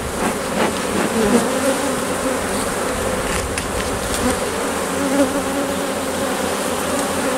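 A colony of honeybees buzzing loudly and steadily over an open hive. The hum holds several wavering pitches, with a few faint clicks.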